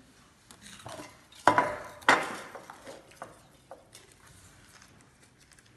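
A mug holding drawing lots clunks twice on a wooden table, about a second and a half and two seconds in, followed by faint clinks and rustles as a hand rummages among the lots inside it.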